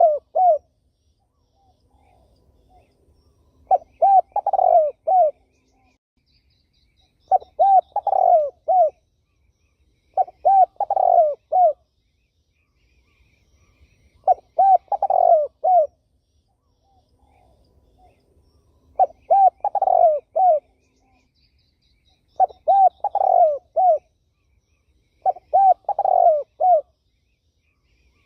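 Spotted dove cooing: a phrase of several quick coos repeated about every three to four seconds, about eight times. Faint chirps of other birds sound between the phrases.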